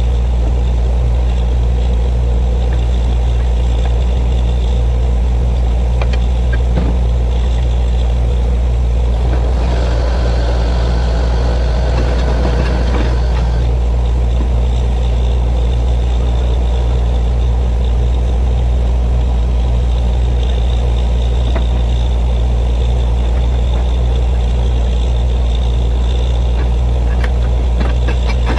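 Borewell drilling rig running steadily, with a deep, even engine drone. A higher hissing band joins it for about four seconds near the middle.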